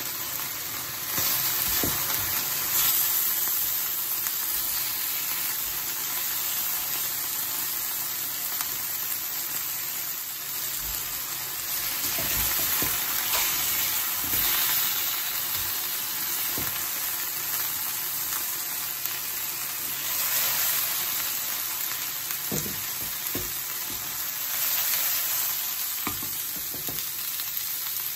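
Chicken breasts sizzling as they pan-fry in oil in a nonstick frying pan, with a steady hiss throughout. Now and then a utensil clacks against the pan as the pieces are turned.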